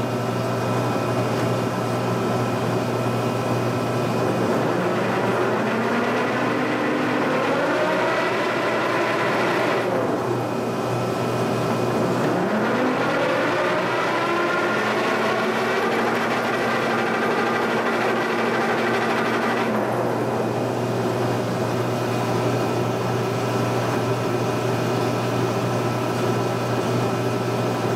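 Giddings & Lewis mill's feed drive whining over a steady machine hum, its pitch rising and falling several times as the axis speeds up and slows down, then holding level for a few seconds.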